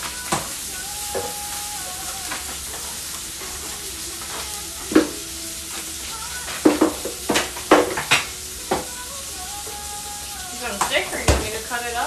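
Vegetables sizzling on a stainless-steel flat-top griddle, a steady frying hiss. Sharp clinks and knocks of kitchen utensils cut in several times, in a cluster around the middle and again near the end.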